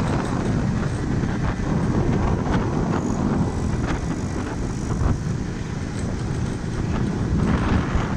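Motorcycle riding along, its engine and road noise mixed with wind rumbling on the microphone.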